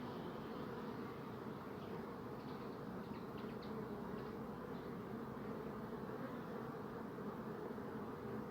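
Bees buzzing in a steady, continuous hum.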